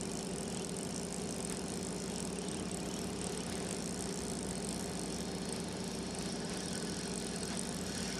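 A fishing boat's engine running steadily at idle, a constant low hum with a little rattle.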